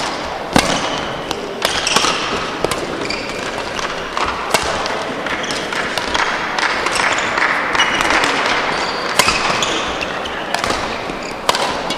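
A badminton rally: a string of sharp racket-on-shuttlecock hits, roughly one a second, over a steady background hum of hall noise.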